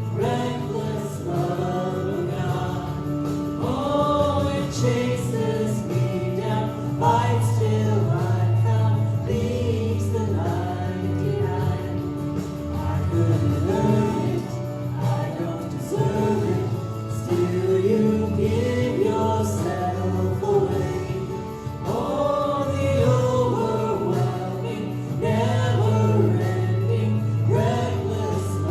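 Christian worship song: a group of voices singing over a steady instrumental backing with a sustained bass line.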